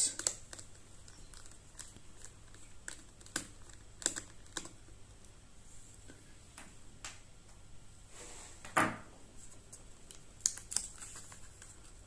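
Scattered light clicks and taps of a small Phillips screwdriver and screws as the two screws holding a Dell Latitude 7290's battery are backed out and set aside, with a short scraping rustle about nine seconds in.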